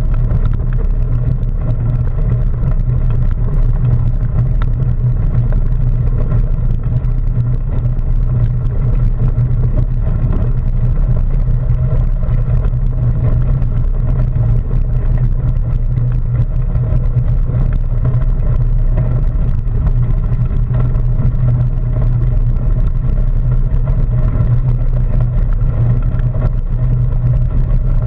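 Mountain bike rolling along a gravel trail: a steady low rumble of tyres crunching over gravel and the bike vibrating, muffled through a GoPro waterproof housing.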